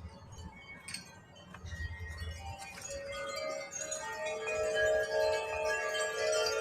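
Wind chimes ringing in gusty wind, several sustained tones overlapping and building louder from about three seconds in, over a low rumble of wind in the first couple of seconds.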